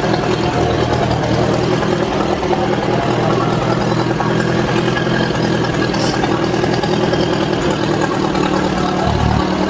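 Old Massey Ferguson backhoe's engine running steadily.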